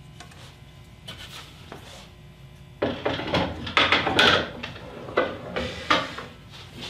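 Clunks and knocks of a metal-plated sled jig on an MDF carriage being handled and set down on a bandsaw table, a string of loud knocks starting about three seconds in.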